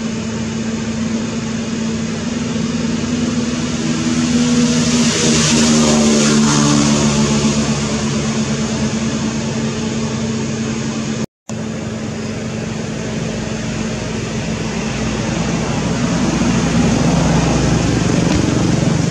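A motor vehicle engine running, swelling louder with its pitch bending about four to seven seconds in as it goes by, and again near the end. The sound drops out completely for a moment a little past the middle.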